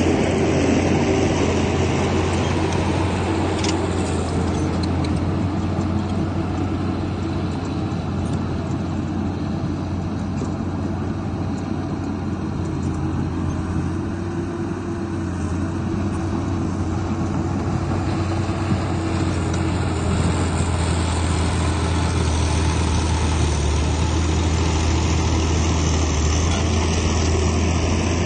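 Heavy diesel engine of earthmoving machinery running steadily under work, with a deep low drone and a rough mechanical wash above it.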